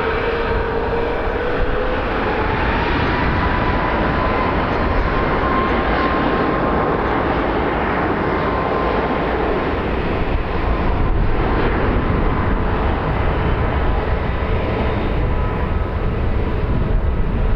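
Jet airliner's engines running loud and steady, with a faint whine that rises in pitch about two seconds in.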